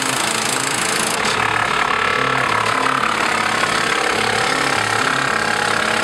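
Tractor engine running steadily, driving a PTO wood chipper as it chips brush.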